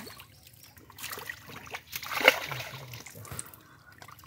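Shallow water splashing and trickling as hands work among crowded fish in a netted pool, with a louder splash about two seconds in.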